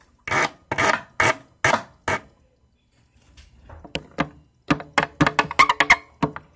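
Hairbrush stroked across the microphone as ASMR hair brushing. Five even strokes about half a second apart, a pause, then a quick flurry of shorter strokes near the end.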